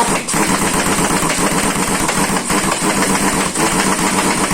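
Air impact wrench running in one long burst on the trailer's wheel nuts, a loud rattling buzz that cuts off suddenly near the end.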